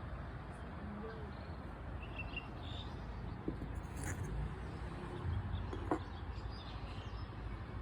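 A steady low hum of unknown origin, with faint bird chirps over it and two short clicks near the middle.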